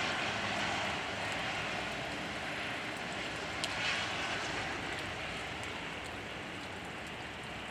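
Steady hiss of rain falling with the wind blowing, one sharp tick about three and a half seconds in.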